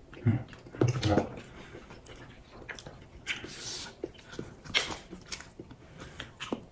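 A dog making two low vocal sounds about a second in, then a few light clicks of forks against a plate.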